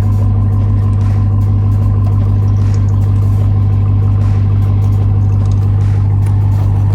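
Pickup truck engine running at a steady low speed, a constant low drone that holds one pitch.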